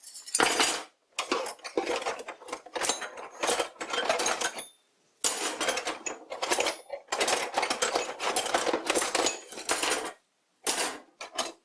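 Small metal lathe accessories clinking and rattling against each other as they are handled and set down one after another: a busy run of light metallic clicks, with two short pauses.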